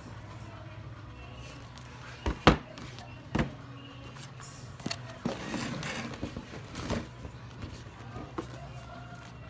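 Small cardboard phone boxes handled and set down on a wooden table: a few sharp knocks, the loudest about two and a half seconds in, with rustling handling noise between them, over a steady low hum.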